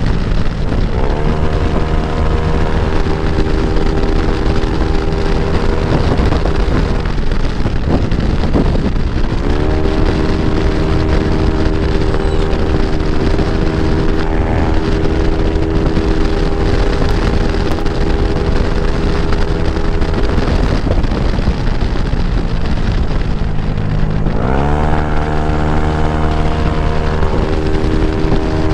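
Yamaha NMAX scooter engine, bored up to 195cc, running on the road under steady wind rush. Its note sweeps up quickly and then holds a steady pitch three times: about a second in, near ten seconds and near twenty-five seconds.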